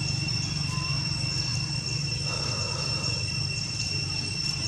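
Steady high-pitched insect drone, holding the same pitch throughout, over a low steady hum.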